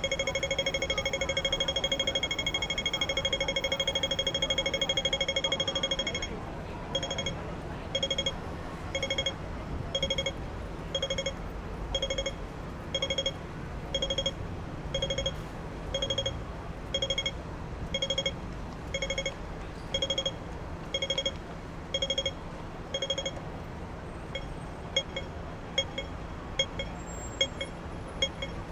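Hong Kong pedestrian crossing signal beeping. It starts as a rapid continuous pulse, then about six seconds in slows to one beep a second, which signals the change from the walk phase to the wait phase. Near the end, short sharp ticks take over.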